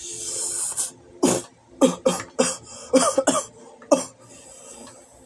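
A short hissing slurp of noodles, then a young man coughing hard about eight times in quick, uneven succession, a coughing fit while he has a mouthful of noodles.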